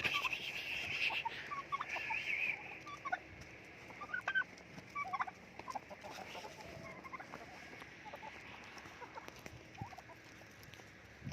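A flock of chickens calling and clucking: a busy run of calls over the first two and a half seconds, then scattered short clucks.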